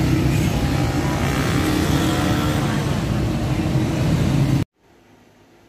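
Outdoor city traffic noise, a dense steady rumble of road vehicles, that cuts off suddenly about four and a half seconds in.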